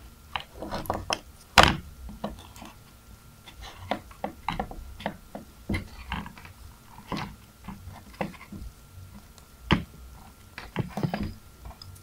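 Scattered light clicks and rustles of hands handling a MagSafe charger's cable and its tape-wrapped soldered wire joints, with a sharper tap about a second and a half in and another near ten seconds.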